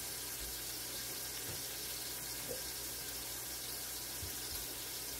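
Country-style pork ribs sizzling steadily as they sear in a stainless steel sauté pan over a high gas flame.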